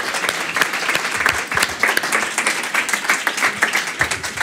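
Small audience applauding: many hands clapping at once in a dense, continuous clatter.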